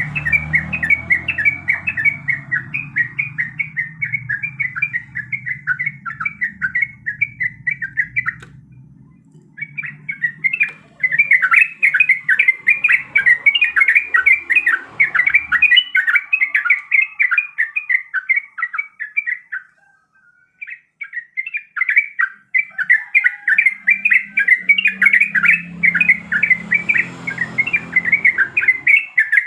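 Sooty-headed bulbul (trucuk) singing in long, fast chattering runs of repeated notes, with two short breaks. It is the loud, continuous song that bird-keepers call gacor.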